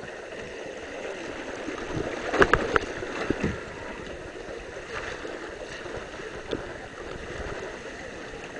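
Water rushing down a curving water slide as people slide through it, with a few sharp knocks about two and a half seconds in.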